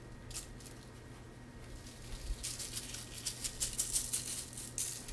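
Plastic shaker bottle of dry barbecue rub shaken by hand: the granules rattle in the bottle and patter out. There is one light shake about half a second in, then a quick run of shakes through the second half.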